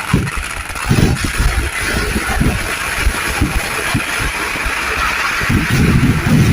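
A rapid volley of firecrackers going off, irregular deep booms several a second that merge into a dense continuous rumble near the end.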